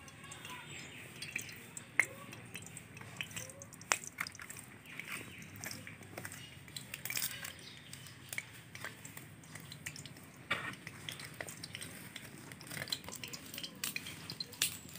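Mustard oil heating in a karai, giving irregular small crackles and clicks.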